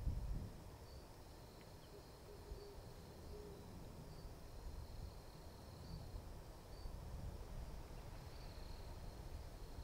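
Quiet outdoor ambience: a low, uneven rumble under a faint, steady high-pitched trill with a few brief louder chirps.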